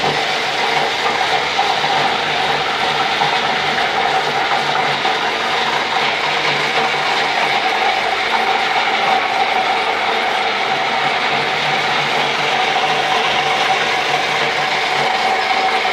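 Kitchen waste grinder for a biogas plant running steadily under power, a constant mechanical grinding noise with a steady mid-pitched whine.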